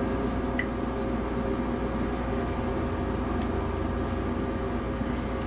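A steady machine hum made of several level tones over a low drone, unchanging throughout.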